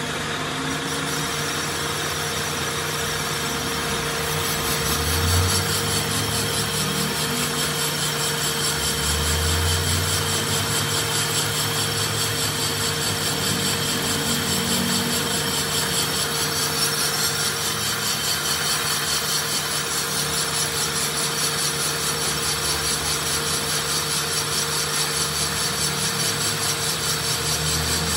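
Metal lathe running steadily with a constant hum, turning a Fiat tractor brake drum to resurface it.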